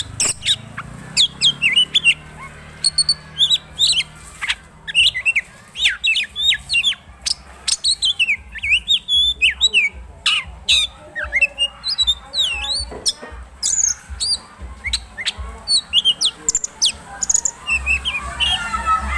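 Oriental magpie-robin singing a fast, loud, varied song of sharp whistles, rising and falling sweeps and clicking notes: the bird in full song, pouring out its repertoire of learned phrases from other birds.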